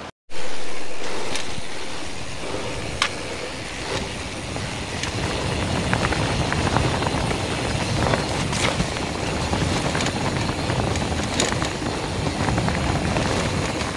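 Strong storm wind buffeting a body-worn camera's microphone on a mountain bike ride: a dense low rumble, with scattered sharp clicks and rattles.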